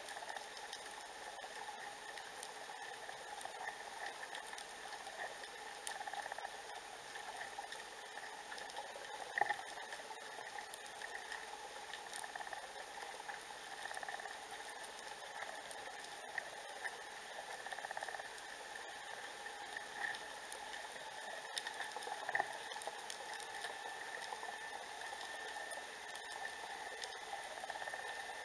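Underwater sea ambience picked up by an underwater camera: a steady fizzing crackle of many tiny clicks, with a couple of louder clicks about a third of the way in and again about three quarters in.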